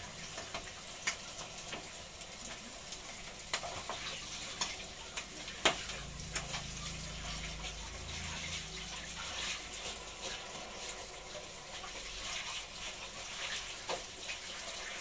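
Pieces of boiled marlin meat frying in oil in a pan, a steady sizzle with a few sharp clicks of a utensil against the pan.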